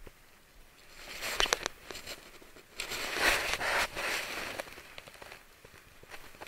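Rustling, crackling noise with a few sharp clicks about a second and a half in, then a louder rustling stretch about three seconds in, as an ultralight spinning rod is swung and cast while wading in the sea.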